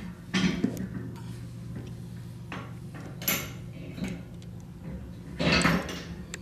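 Hand tools handling metal: a few separate clinks and short scrapes as a thread insert is turned into a motorcycle engine case with its installation tool, over a steady low hum.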